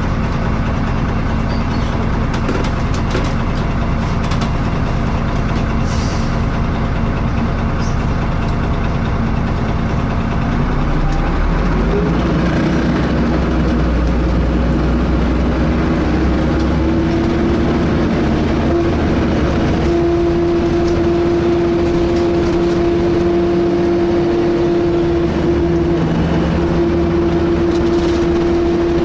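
A DAF-chassised Alexander ALX300 single-deck bus heard from on board, its diesel engine running. About twelve seconds in, a strong steady whine sets in and is loudest in the second half, with short breaks. It sounds like a whining cooling fan, but its cause is unknown.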